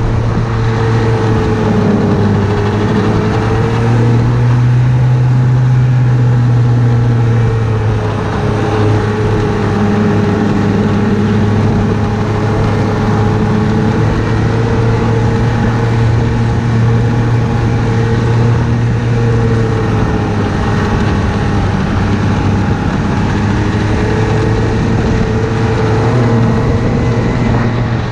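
Ski-Doo Blizzard 900 ACE snowmobile's four-stroke three-cylinder engine running at a fairly steady cruising speed under way, over a low rumbling noise. The pitch rises slightly about four seconds in and eases back around eight seconds.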